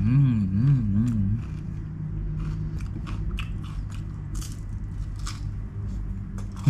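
Crunching bites and chewing on the crisp wafer tip of an ice cream cone, its bottom filled with chocolate, heard as a string of short sharp crunches. It opens with a wavering hum through closed lips lasting about a second and a half.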